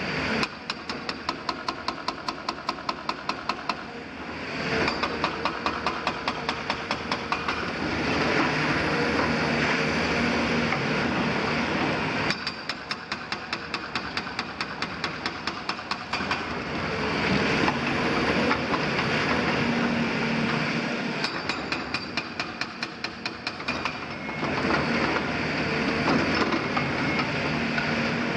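Hydraulic breaker on a Caterpillar 340F demolition excavator pounding masonry in a rapid, regular train of blows, several a second, with the excavator's diesel running under load. In several stretches the din swells louder and rougher, then drops back to the plain hammering.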